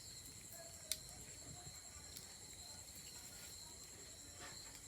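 Faint, steady high chirring of insects, with a single sharp click about a second in.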